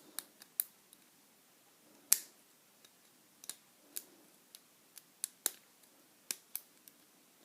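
Irregular sharp metallic clicks and ticks of a lock pick and tension wrench working in a Yale closed-shackle padlock, with one louder click about two seconds in.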